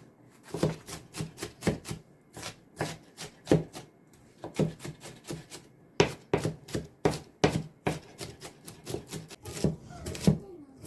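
Kitchen knife chopping on a cutting board in quick runs of about four strokes a second, with short pauses between the runs.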